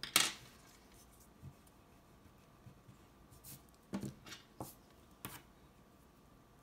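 A pencil set down on a glass tabletop with one sharp click, then quiet, with a few soft taps and brushes of hands on the paper about four to five seconds in.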